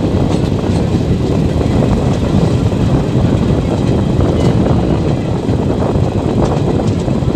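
Passenger train running along the track, heard from the open doorway of a coach: a steady low rumble of wheels on rail mixed with rushing air, with a few faint clicks.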